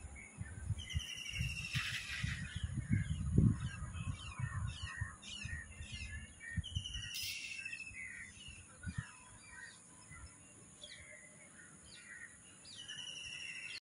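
Several birds in the lakeside trees calling, with many short chirps and runs of quick repeated high notes. Low rumbling bumps sit underneath in the first few seconds, loudest about three seconds in, and again briefly near the middle.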